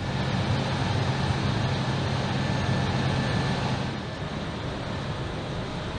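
Fuel servicing truck's engine and pump running steadily during a jet-fuel transfer, a dense mechanical noise with a low hum. About four seconds in, the hum drops away and the noise gets a little quieter.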